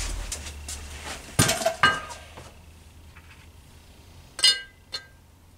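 Steel ball bearing and metal engine parts clinking as they are handled and fitted against the moped engine case: four clinks, two about a second and a half in and two more near four and a half seconds, the louder ones ringing briefly.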